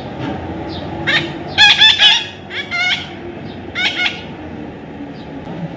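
Parrot calling: a run of loud, pitched squawks that bend in pitch, bunched between about one and four seconds in, with the loudest near the two-second mark.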